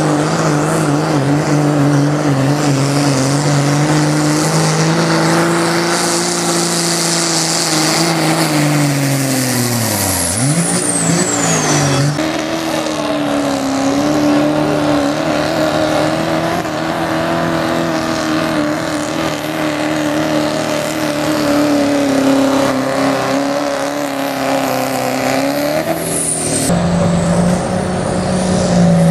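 Diesel pickup truck engines at full throttle pulling a weight-transfer sled, a steady high-revving note. About ten seconds in the engine winds down with a falling pitch and a high whine sliding down as that pull ends, then another truck pulls at full throttle.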